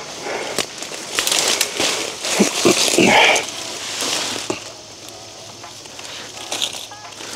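Footsteps crunching irregularly through dry forest-floor litter, with a louder scuffle about three seconds in.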